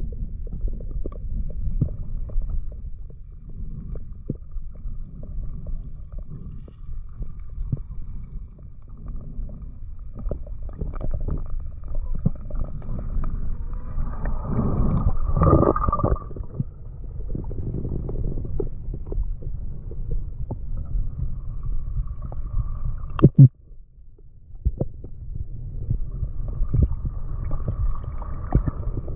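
Muffled underwater sound picked up through a camera housing: a steady low rumble of moving water with scattered clicks and crackles. It swells about halfway through, and there is one sharp knock near the end.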